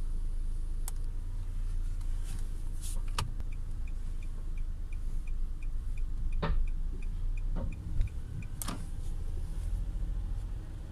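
Mitsubishi eK X with a CVT, heard from inside the cabin while driving: a steady low drivetrain and road rumble, with a few separate clicks. For about six seconds in the middle, a run of short, high ticks sounds about four times a second. The owner is recording an abnormal noise from the CVT.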